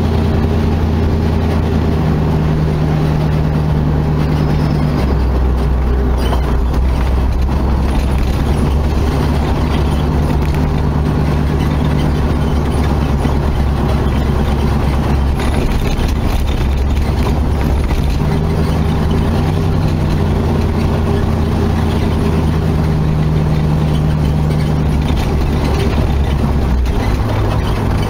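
Dodge Charger's engine running steadily while the car cruises along a road. Its low note shifts in pitch a few times with changes in speed.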